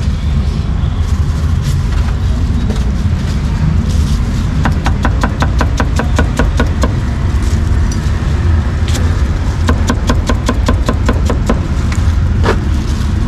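Cleaver chopping meat and cucumber on a thick wooden chopping block, in two quick runs of strokes at about five or six a second, with a few single knocks between them. A steady low rumble of street traffic runs underneath.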